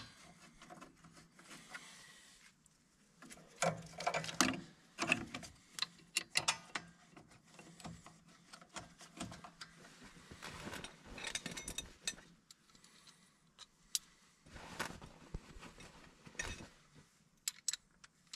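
Light metal clicks, clinks and scrapes coming at irregular moments as 12 mm bolts are handled and started by hand into a tractor's steel battery bracket.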